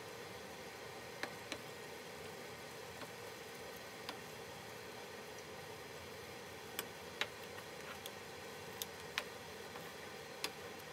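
Chicken breasts simmering in a thick sauce in a skillet: a steady low sizzle with scattered sharp pops and clicks, about a dozen in all.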